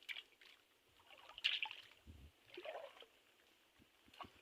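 Faint trickling and splashing of shallow water, a few separate swishes with a dull low thump about two seconds in and small clicks near the end.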